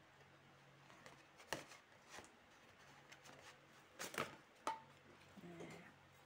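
Cardboard label sleeve being pulled off a stainless steel fry pan and the pan handled: quiet rustling with a few sharp clicks and taps, most of them about four seconds in.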